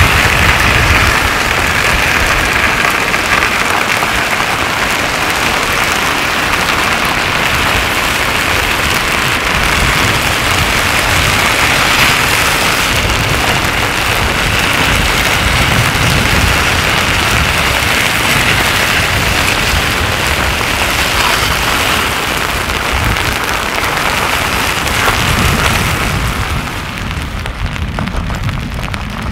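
Slabby pahoehoe lava flow front crackling and scraping as its crust breaks and slabs are dragged over cooled older lava, a dense rain-like crackle. It grows quieter near the end.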